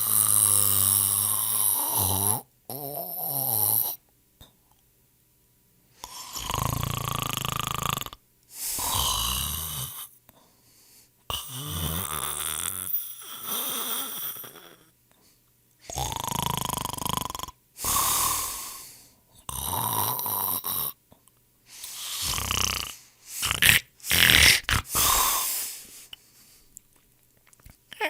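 A sleeping person snoring, a series of rasping snores about one to two seconds each with breaths between them. A brief silence comes about four seconds in, and the sounds grow shorter and choppier near the end.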